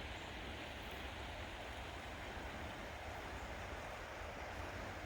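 Steady rushing of a river flowing, an even hiss with a low rumble underneath.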